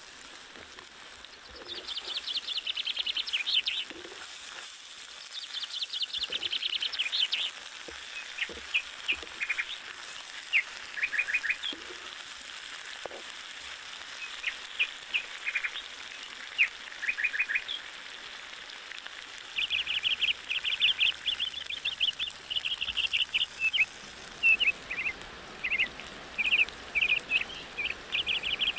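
Outdoor animal calls: rapid, high-pitched chirping trills coming in repeated bouts of a second or two, several overlapping, over a faint steady background.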